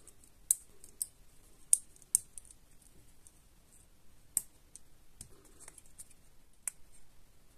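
Plastic LEGO bricks clicking as they are pressed together and handled, with about six sharp snaps at irregular moments and lighter ticks between.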